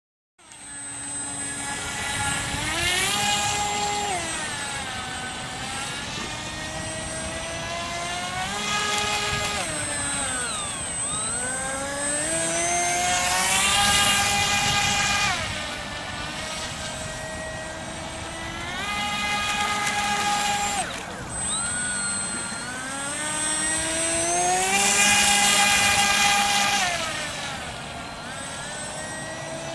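Radio-controlled model propeller boat's motor and propeller whining, starting about half a second in; the pitch rises and falls about five times as the throttle is opened and eased off during runs and turns.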